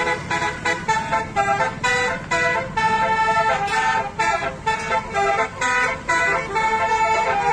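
Bus telolet 'basuri' horn, a multi-trumpet musical air horn, playing a quick tune of short chopped notes, about three a second, with several pitches sounding together.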